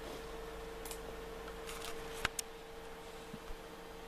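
A few light clicks of a computer mouse button, the sharpest about two seconds in, over a steady faint hum.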